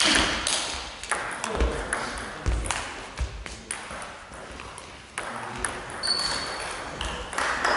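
Table tennis balls ticking sharply and irregularly on table, bats and floor between points, with a short sneaker squeak on the hall floor about six seconds in.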